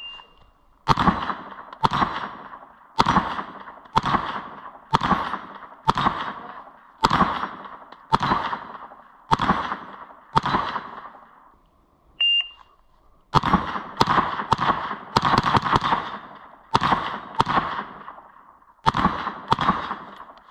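Faxon Bantam 9 mm Luger carbine firing: a string of about ten single shots roughly one a second. A short electronic beep follows, then a faster string of about a dozen shots, roughly two a second. Another brief beep comes right at the start.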